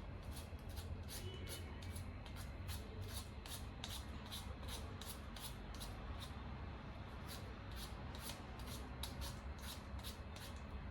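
Repeated short scratchy strokes, about three a second and a little uneven, over a low steady hum.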